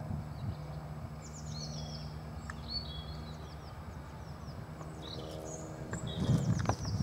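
A vintage chainsaw's two-stroke engine running at idle with a low, even putter. It grows fuller and louder near the end. Songbirds chirp repeatedly over it.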